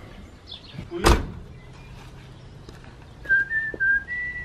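A single sharp knock about a second in, then from about three seconds in a person whistling a tune, the notes stepping up and down.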